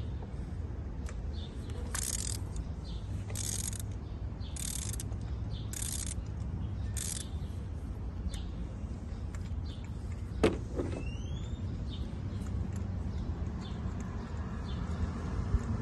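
Ratchet and socket working a nut on the engine: five short bursts of rapid ratcheting about a second apart, then a single sharp click about ten seconds in, over a steady low background rumble.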